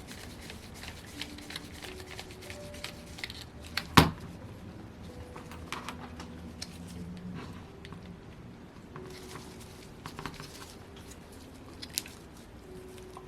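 Small metal clicks and scraping of hand tools working the rocker-arm pins out of a Saito FA-100T model engine's cylinder head. There is one sharp, loud click about four seconds in and a lighter one near the end.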